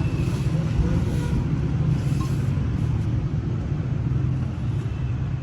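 Steady low rumble of a road vehicle in motion, engine and road noise, even throughout.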